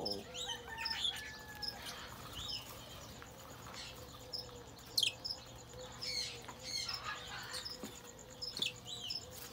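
Small aviary birds chirping: many short high calls, some sweeping down in pitch, with one sharper, louder high call about five seconds in.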